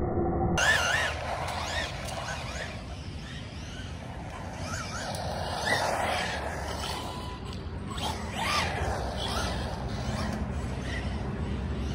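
Arrma Senton RC short course truck's electric motor whining, its pitch rising and falling again and again with bursts of throttle as the truck drives and slides on asphalt.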